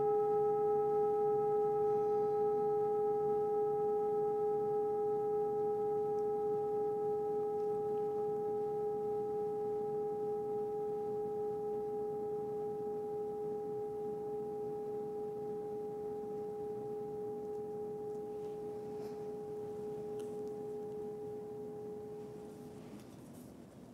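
Meditation bowl bell ringing out after a strike: one long, steady tone with a few higher overtones, slowly fading until it dies away near the end.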